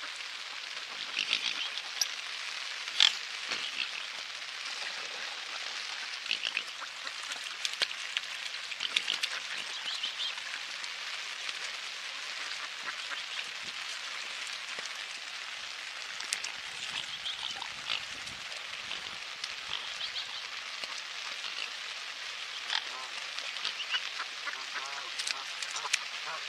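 Mallard ducks quacking in short scattered calls over the steady hiss of rain falling on the lake.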